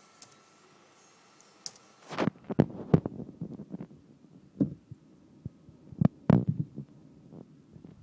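A string of irregular dull thumps and knocks, about ten of them, beginning about two seconds in after a short quiet stretch.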